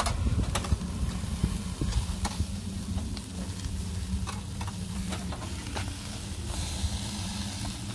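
Meat skewers and kefta sizzling on a charcoal grill, with scattered sharp clicks of the metal skewers knocking against the grate as they are turned, over a low steady rumble.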